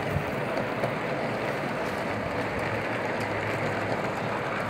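O gauge model freight train running: a steady rolling noise from the electric tank locomotive and the long rake of wagons on the track as the train climbs a grade.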